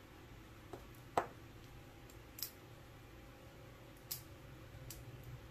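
Faint, sharp clicks and taps from a stack of small glitter jars being handled while a tiny lid is worked loose; about five clicks spread apart, the loudest about a second in.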